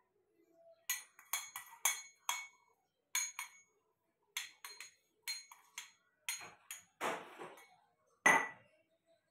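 Stainless steel chakli press being handled: a run of sharp metal clinks and knocks with a ringing tone, steel on steel, with a brief scraping rub about seven seconds in and the loudest clink near the end.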